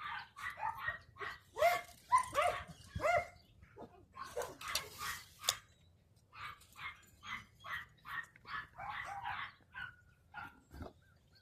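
Several kennel dogs barking over and over, the barks crowding and overlapping at first, then settling into a run of barks about two a second.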